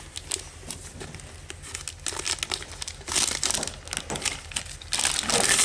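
Clear plastic tote liner film crinkling and crackling as a Venturi valve wand is worked through its vacuum spout, in irregular crackles that get louder about three seconds in and again near the end.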